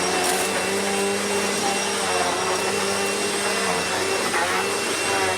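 Royal ProSeries Quick Rewind vacuum cleaner running steadily, a motor hum with a high whine over it that shifts slightly in pitch.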